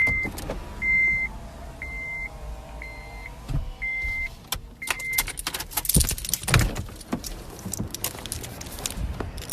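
A steady high electronic beep repeating about once a second, six times, stopping about five seconds in, over a run of sharp clicks and bangs that are loudest about six seconds in.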